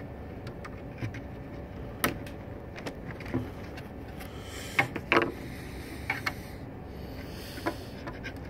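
Irregular small plastic clicks and scrapes as a computer fan's two-wire connector is wiggled and pried loose from its header on a circuit board, with a couple of brief soft scraping sounds.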